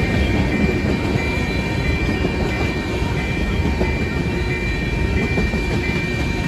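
A train rolling past: a steady, loud rumble of wheels on rail, with a faint steady high ring above it.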